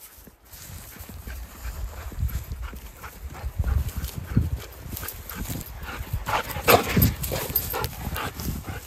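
Running footfalls thudding through dry grass and sagebrush, with the rustle and crackle of dry stems, as an Australian shepherd and the person following it run. The thuds pick up after about two seconds.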